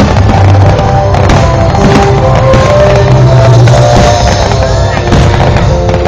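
Loud music with sustained notes and heavy bass, with a few sharp firework bangs going off among it.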